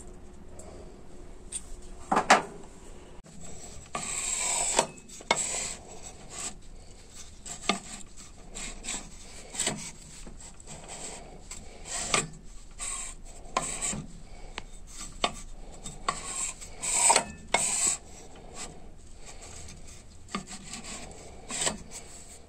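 Irregular rubbing and scraping with scattered sharp knocks, from small engine parts being handled and moved about.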